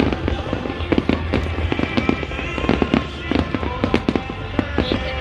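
Fireworks going off in a rapid, irregular run of sharp pops and cracks over a low rumble, with music playing over loudspeakers.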